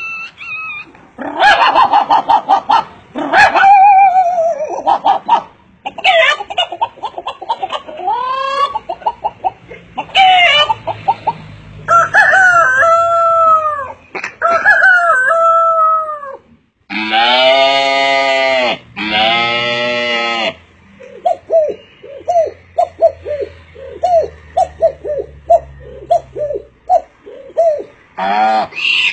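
A man imitating animal calls with his voice: a string of separate calls that glide in pitch, two long loud calls about two-thirds of the way through, then a fast run of short clucking calls. Much of it is chicken-like, hen clucks and rooster crows.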